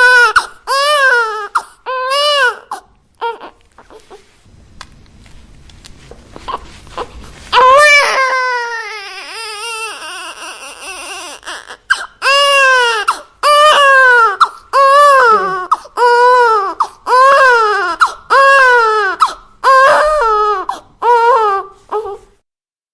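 Baby crying: a run of short wails, each about a second long and rising then falling in pitch, broken by a lull a few seconds in. Then comes a long falling cry, followed by a steady string of wails about one a second that stop shortly before the end.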